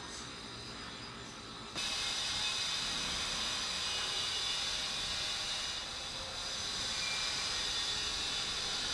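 Steady hiss with no distinct events. It steps up abruptly in level and brightness just under two seconds in, then holds steady.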